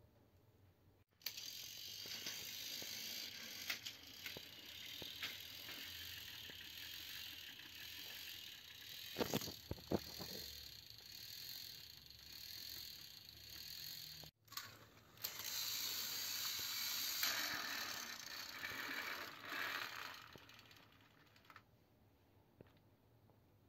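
Small electric motors and plastic gearboxes of battery-powered toy train locomotives whirring as they run on plastic track, with a few sharp clacks about nine to ten seconds in. The whirring cuts off abruptly about fourteen seconds in, starts again at once and fades away near the end.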